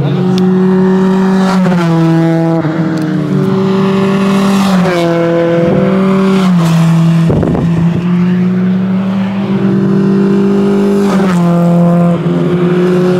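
D-series four-cylinder engines of Honda Civic race cars running hard on the circuit. The engine note holds, then drops in steps several times, with a brief rush of noise about seven seconds in.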